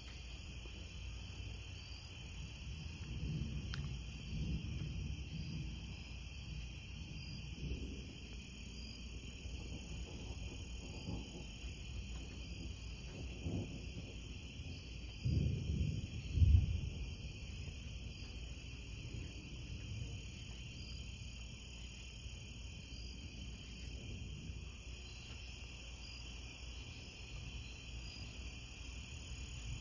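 Steady chorus of night insects chirring, with low rumbles of thunder rising and fading under it several times. The loudest rumble comes just past halfway.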